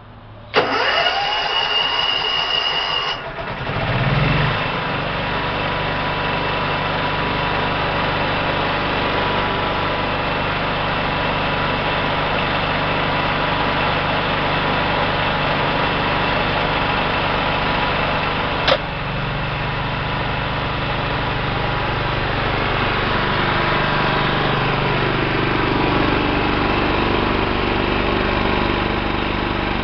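Generac 5 kW standby generator starting: a few seconds of cranking, then the engine catches and runs steadily. A single sharp click comes about two-thirds of the way through, after which the engine note shifts slightly.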